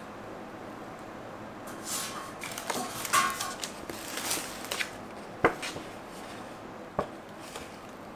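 Paper and plastic packaging being handled, rustling and crinkling in bursts from about two to five seconds in, followed by two short sharp taps a second and a half apart.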